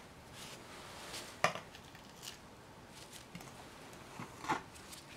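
A brayer rolled through oil-based ink on a palette, with a few light knocks and clatter as it is handled; the sharpest knock comes about one and a half seconds in.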